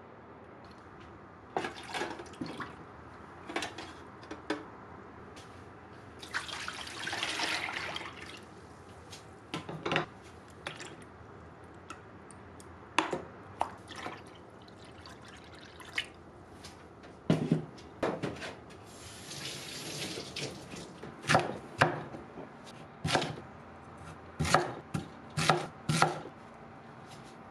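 Liquid poured into a stainless steel pot, splashing, in two stretches, with scattered clinks and taps. Near the end a knife chops Korean radish on a wooden cutting board in a run of sharp knocks.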